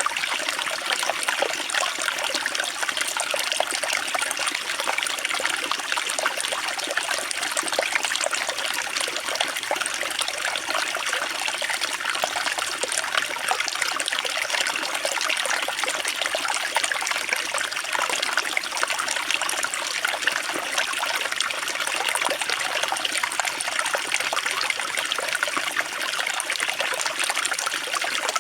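Water trickling and splashing steadily, a constant splashy hiss with no change over the whole stretch.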